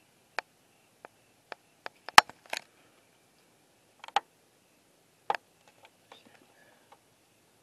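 About a dozen sharp clicks and snaps at irregular intervals, the loudest about two seconds in.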